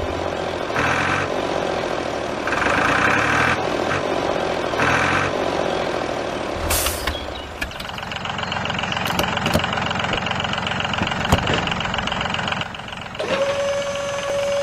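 Truck sounds: an engine running with a short, sharp hiss about seven seconds in, and a steady tone starting near the end.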